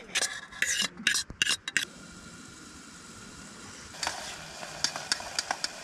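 A spoon stirring and scraping pasta in a metal cooking pot: a run of quick scrapes in the first two seconds, then a steady hiss with light clicks and taps.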